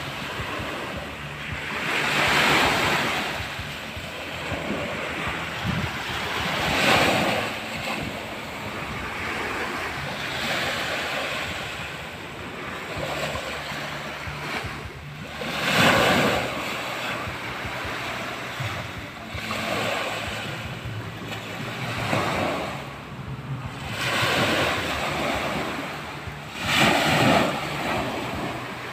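Small sea waves breaking and washing up a sandy shore, the surf swelling louder every few seconds as each wave comes in.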